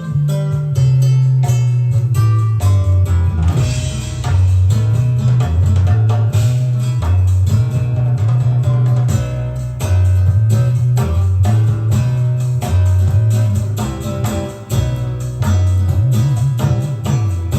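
Music played back from a cassette on an A&D (Akai) top-of-the-line cassette deck: a song with a walking bass line, guitar and a steady drum beat.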